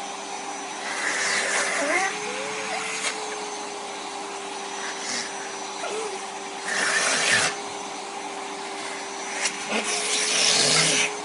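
Vacuum cleaner running with a steady motor hum and hiss, swelling into louder rushing noise three times.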